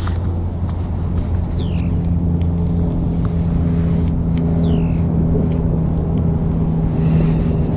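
A steady low motor hum over a heavy low rumble, with two short high whistles falling in pitch, one about a second and a half in and one about four and a half seconds in.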